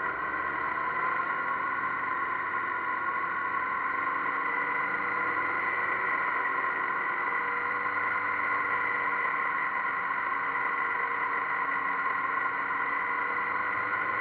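Motorcycle engine running steadily at town speed, heard from a camera mounted on the bike, over road and wind noise; its pitch drifts slightly with speed.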